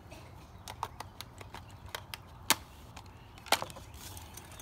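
Scattered light clicks and knocks of camping gear being handled and packed into a dry bag, with two sharper clicks about two and a half and three and a half seconds in.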